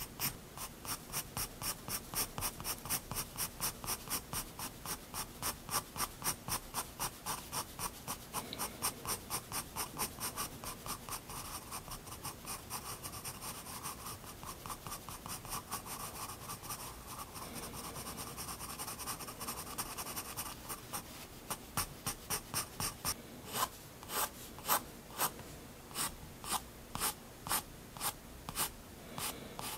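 Prismacolor Turquoise 7B graphite pencil scratching on sketchbook paper in quick, short, even strokes, about four a second, laying in fine fur lines. In the last third the strokes thin out into separate, more spaced scratches.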